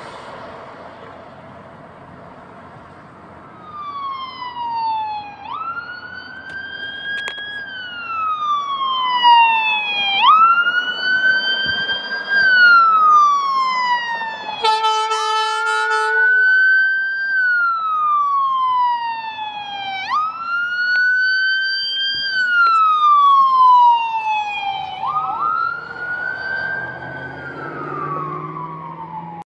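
Dallas Fire-Rescue siren wailing, its pitch jumping up and then sliding slowly down about every five seconds, starting a few seconds in. A short horn blast sounds about halfway through.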